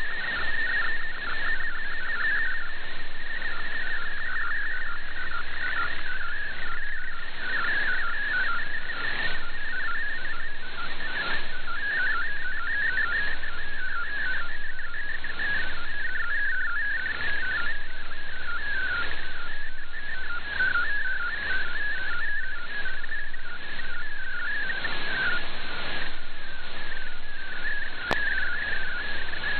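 MFSK64 digital-mode data signal received over shortwave radio, carrying an image: a continuous, fast warble of short, high tones hopping in pitch, over a steady hiss of static.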